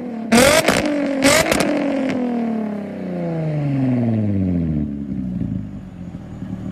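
Nissan 350Z's VQ35 V6 revved twice in quick succession, each rev set off by loud exhaust bangs from a flame-spitting exhaust. The revs then fall slowly back over about three seconds to a low idle.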